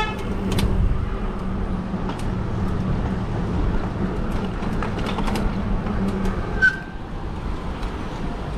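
Traffic and riding noise from a fat-tire e-bike on a city street: a steady low rumble with a constant hum, scattered light clicks, and one brief high chirp about two-thirds of the way through.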